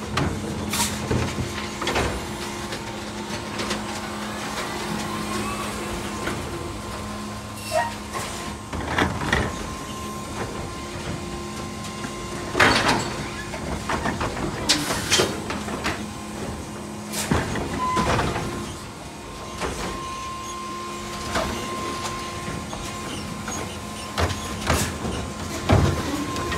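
Electric Mack LR New Way Sidewinder side-loader garbage truck at work: a steady electric hum with a fainter high whine, broken by about a dozen sharp metallic clanks and knocks. The hum drops out for several seconds around the middle, then comes back.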